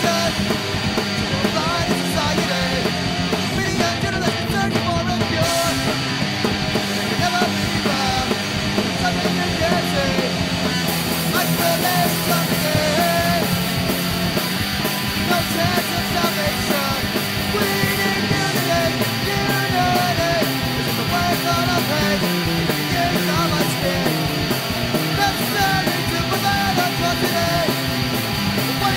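Ska-punk band recording playing an instrumental stretch with bass, drums and wavering lead lines. The cymbals brighten about a third of the way in, and the bass moves in stepping runs in the second half.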